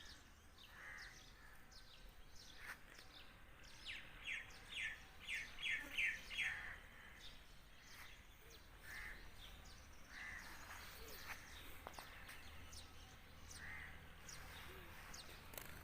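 Birds chirping outdoors, with a quick run of about seven short repeated chirps from about four seconds in and scattered single calls the rest of the time.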